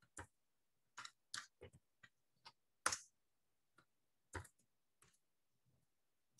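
Faint, scattered computer keyboard keystrokes: about eight separate clicks spread unevenly over several seconds, the strongest about three and four and a half seconds in.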